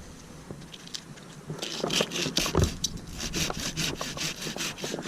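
Hand saw cutting through wood, starting about a second and a half in with quick, even rasping strokes at roughly four or five a second.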